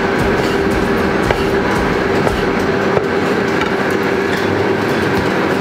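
Steady machine hum with a constant pitched tone under it, running evenly, with a few light knife taps on a wooden chopping board as an avocado is sliced.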